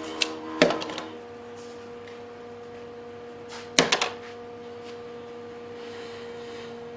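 Two sharp knocks near the start and a quick cluster of three or four about four seconds in, over a steady held chord of background music.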